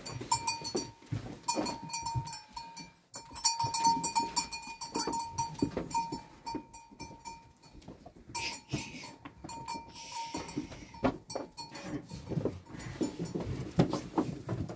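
A flock of sheep bleating, with many short clicks and knocks among them.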